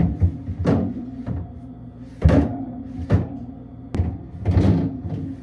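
Refrigerator shelves and drawers being put back in place: a series of knocks and thunks, about eight across five seconds.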